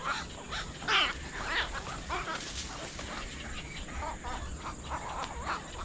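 Many birds calling at once, a dense run of short overlapping calls, loudest about a second in.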